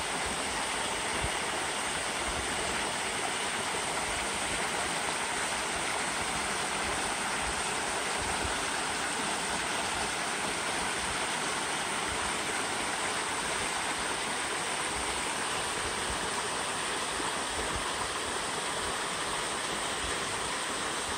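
A rocky woodland brook rushing and splashing down small cascades between boulders, a steady rush of water.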